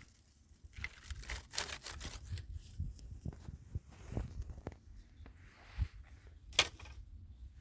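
Irregular scraping and rustling strokes, denser in the first half, with one sharper scrape or knock near the end.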